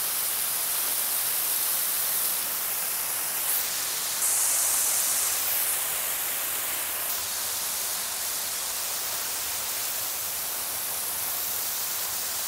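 Waterfall: water falling and splashing close by, a steady hiss that gets louder for about two seconds some four seconds in.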